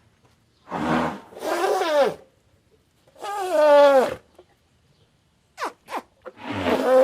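An animal calling: three drawn-out calls with a clear pitch, each falling at the end and lasting under a second, with two short sharp clicks between the last two.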